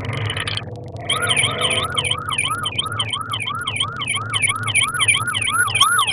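Police car siren in fast yelp mode, rising and falling about three times a second, starting about a second in and loudest near the end. It is heard from inside a car's cabin over the low hum of its engine.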